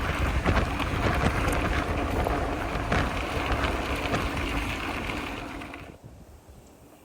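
All-City Gorilla Monsoon gravel bike on 27.5 x 2.1 Teravail tyres rolling fast over loose gravel, the tyres crunching and the bike rattling, with wind buffeting the microphone. The noise falls away about six seconds in.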